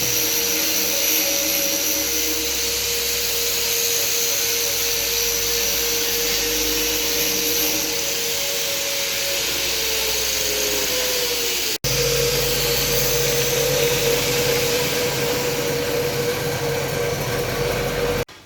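Peanut skin peeling machine running: a steady motor whine over a loud hiss. The pitch sags slightly before the sound breaks off about twelve seconds in, then it runs on steadily and stops abruptly near the end.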